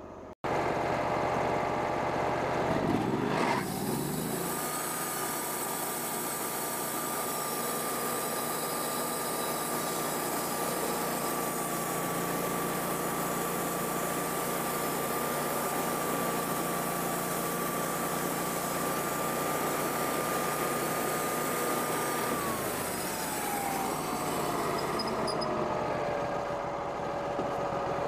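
Wood-Mizer portable bandsaw mill running and cutting through a black walnut log. It revs up about three seconds in and holds a steady whine through the cut, and the pitch slides down near the end as the saw slows.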